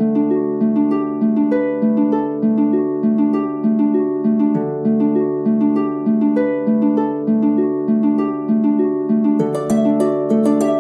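Background music: a plucked-string instrument playing a gentle, steady, repeating pattern of notes, about two to three a second, with brighter high notes joining near the end.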